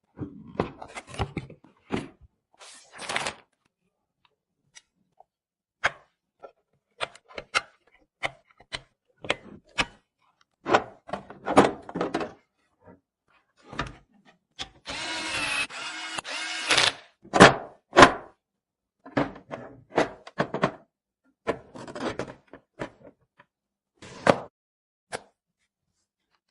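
Hand-assembly sounds of PC parts being handled and fitted: scattered clicks, taps and knocks at irregular intervals, with about two seconds of rustling or scraping around the middle.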